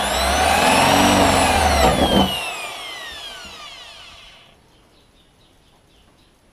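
Corded electric power drill boring a pilot hole through the pickup's sheet-steel body panel, its motor running at full speed. About two seconds in there are a couple of sharp knocks, and the trigger is released: the motor winds down with a falling whine, fading out over about two seconds.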